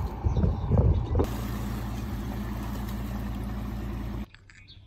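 About a second of gusty wind rumble on the microphone, then a steady, low engine-like drone that cuts off suddenly near the end.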